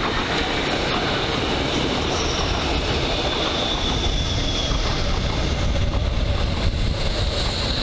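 Hamburg S-Bahn class 472/473 electric multiple unit passing close by at speed: steady rumble of wheels on rails and the cars going past, with a faint high whine coming and going.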